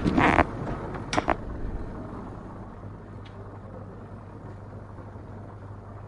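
A loud rush of noise for the first half second, a couple of sharp knocks about a second in, then a steady low hum under faint background noise.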